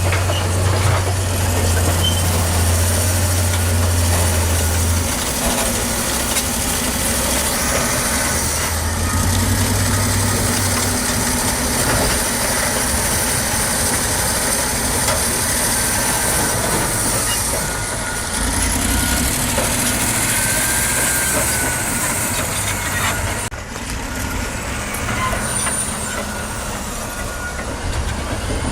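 Heavy earthmoving machinery working: a large diesel engine running steadily with a deep hum and constant mechanical clatter, with faint squeaks over it and an abrupt change in the sound near the end.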